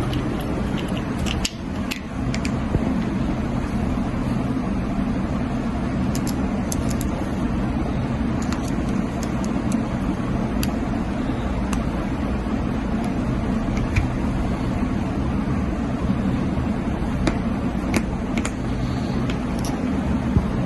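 A steady low rumble with a few light, sharp clicks scattered through it.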